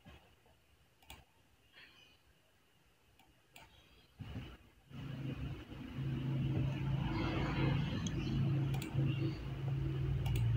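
A few sparse computer mouse clicks in near silence, then about five seconds in a steady low hum with a faint buzz sets in and carries on.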